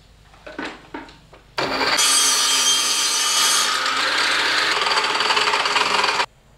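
Table saw cutting through a thin wooden board, a loud, steady whine mixed with the rasp of the blade in the wood. It starts abruptly about a second and a half in and stops sharply near the end, after a few light knocks of the board being handled.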